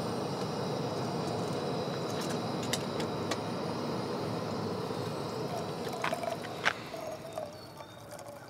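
Stovetop moka pot brewing espresso on a camp stove: a steady hiss as the coffee gurgles up through the spout, with a few sharp pops. Near the end it gives way to coffee being poured from the pot into a metal cup.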